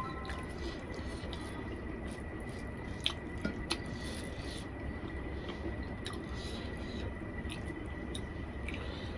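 Close-up eating sounds: chewing and the wet squish of rice and gravy being handled, with scattered small clicks and a faint steady high whine underneath.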